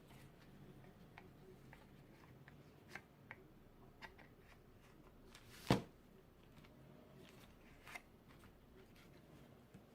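Hand work on a small piece of azalea wood: scattered light clicks and short scrapes, with one louder knock about halfway through.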